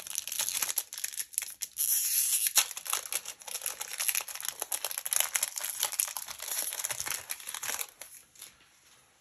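Crinkling of a foil trading-card booster wrapper being handled and torn open, with small clicks of cards being handled; it stops about a second before the end.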